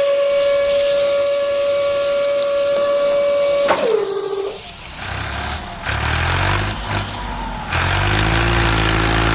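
A truck's horn-like whistle with hiss, held steady for almost four seconds and dropping in pitch as it dies away. Then a truck engine runs with its revs rising and falling.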